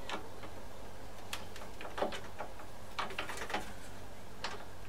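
Scattered light clicks and taps of hand handling of lawnmower engine parts and tools, a few at a time with a small cluster past the middle, over a steady low hum.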